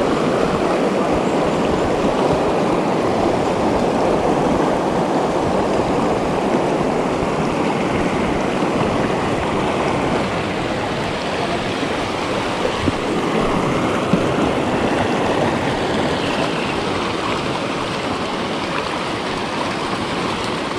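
Shallow, rocky river rushing over stones: a steady rush of water.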